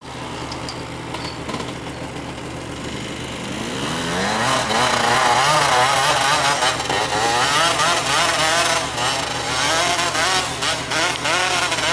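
Motocross bike engine revving up and down as it rides, the pitch climbing and dropping with the throttle. It grows louder about four seconds in as the bike comes closer.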